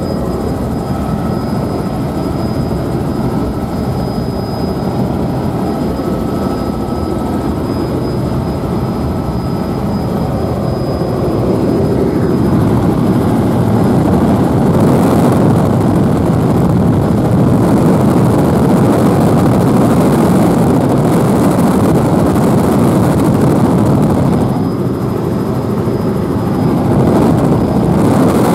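Helicopter cabin noise heard from inside in flight: a steady, loud drone of engine and rotor. It grows louder from about twelve seconds in and eases again near the end, with a thin high tone over it that fades out about eight seconds in.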